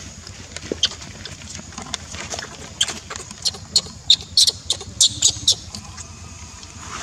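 Baby macaque crying in a run of short, high-pitched squeals, thickest from about three to five and a half seconds in.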